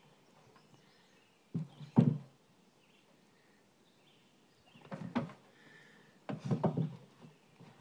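A German Shorthaired Pointer splashing in shallow water with her snout while fishing, in short bursts: a pair about one and a half to two seconds in, the loudest, then more around five and around six and a half to seven seconds.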